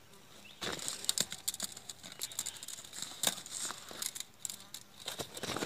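Woven plastic sack rustling and crinkling as it is handled: a run of irregular crackles that starts about half a second in.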